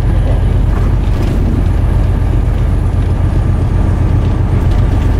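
Semi truck's diesel engine and tyres droning steadily, heard from inside the cab while cruising at highway speed.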